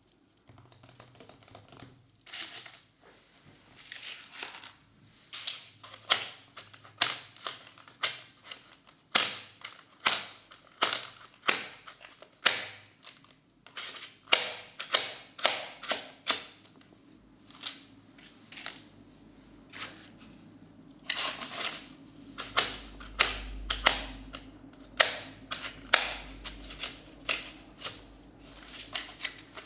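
Felt-tip markers stroking across paper in a colouring book: short, sharp scratchy strokes, one to three a second, in runs with brief pauses. A low rumble comes in about two-thirds of the way through.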